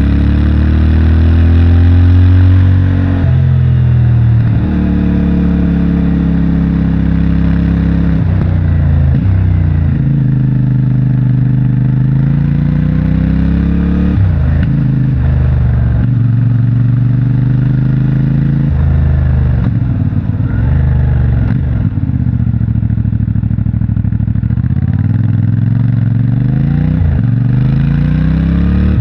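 CFMOTO 450MT motorcycle's 449 cc parallel-twin engine through its stock exhaust, under way on the road. It revs up again and again, with sudden drops in pitch at the gear changes, and eases off and picks up again several times.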